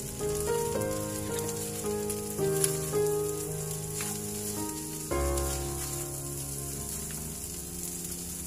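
Flaked milkfish and green chili sizzling in a frying pan as a spatula stirs them, with a few short scraping strokes, under background music with a melody of changing notes.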